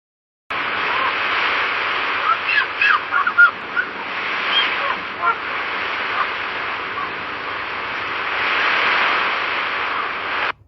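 Sea waves washing on the shore, a steady rushing that swells again near the end, with a flurry of short chirping bird calls from about two to five seconds in. The sound starts and stops abruptly.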